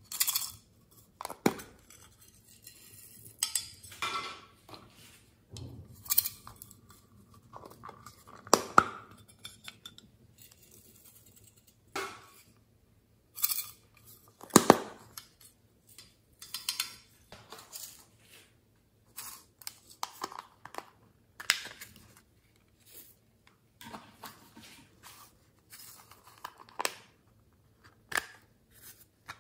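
Small plastic containers of glitter being handled: lids clicking and snapping open, plastic tapping, and glitter and sequins rattling as they are shaken out. The clicks and rustles come irregularly, a few of them sharp and loud.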